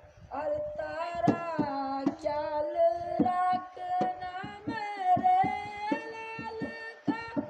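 A voice singing a slow melody with long held notes that glide between pitches, accompanied by sharp hand-drum strokes.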